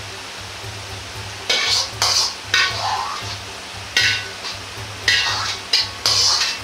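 Steel wok ladle scraping and clinking around the inside of an iron wok in about seven short strokes, starting a second and a half in, as crispy pork belly and hot rendered fat are scooped out, with a light sizzle of the oil.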